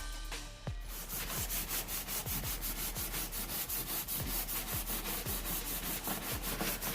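Sandpaper rubbed rapidly back and forth over a fiberglass body-repair patch on a car's quarter panel, about five or six strokes a second, starting about a second in. It plays over background music with a steady kick-drum beat.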